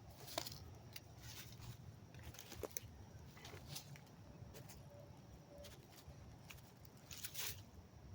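Faint, irregular crunching and rustling of dry leaves and brush, a scattered handful of crackles with the loudest about seven and a half seconds in.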